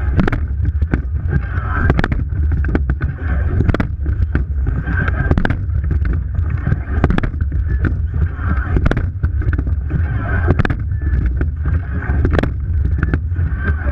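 Water rushing along the hull of a rowing eight, heard with heavy wind on a bow-mounted camera's microphone. The rush swells with each stroke, about one every one and a half to two seconds, with sharp knocks throughout.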